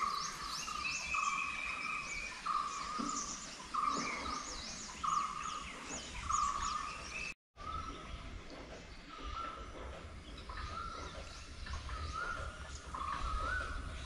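Morning birdsong from several birds: one repeats a short call about once a second while others add quick high chirps. The sound drops out completely for a moment about halfway through.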